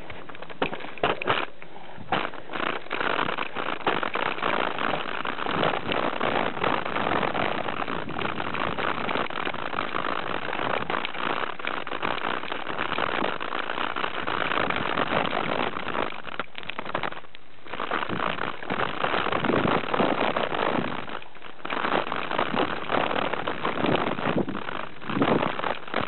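Mountain bike ridden fast down dirt singletrack: a steady rush of tyres rolling over dirt, with crackling rattles and knocks from the bike over roots and rocks. The noise dips briefly twice, a little past halfway.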